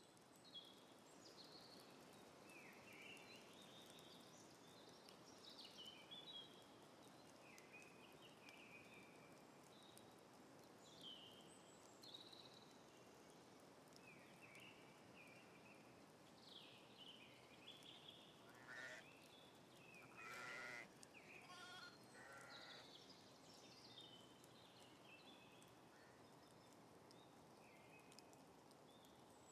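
Faint countryside ambience: small birds chirping and singing throughout over a steady low hiss, with a few sheep bleats about two-thirds of the way in.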